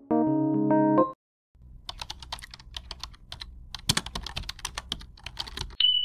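A short keyboard-music phrase that stops about a second in, then a typing sound effect: quick, irregular computer-keyboard clicks for about four seconds. A steady high beep starts near the end.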